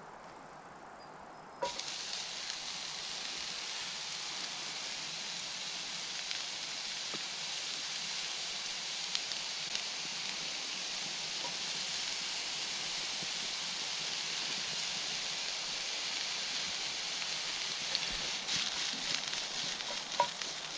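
Sliced milk cap mushrooms hitting a hot oiled frying pan on a portable gas stove, the sizzle starting suddenly about two seconds in and then running steadily. A few light clicks and scrapes near the end as the pan is stirred.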